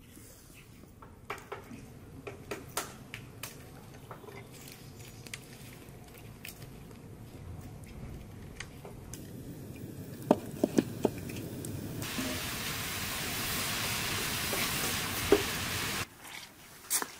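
Metal pans and trays clinking and knocking, with a cluster of sharper clanks about ten seconds in. Then a steady hiss comes in and runs for about four seconds before stopping abruptly near the end.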